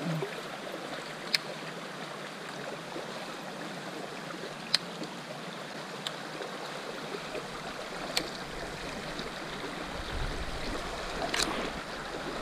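Steady rush of river current flowing through a shallow pool, with a few sharp clicks scattered through it.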